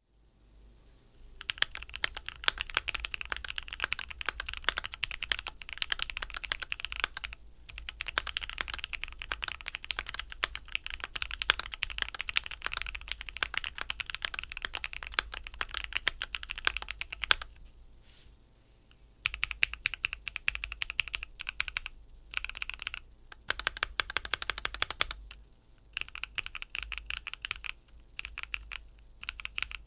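Keychron Q1 mechanical keyboard with lubed Gateron G Pro Brown switches and stock keycaps being typed on in quick runs of keystrokes. Typing starts about a second and a half in and stops for a few short pauses in the second half, over a steady low background hum.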